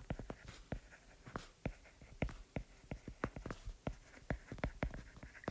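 Stylus writing on a tablet screen: a quick, irregular run of light clicks and taps as the tip strikes the glass while words are handwritten.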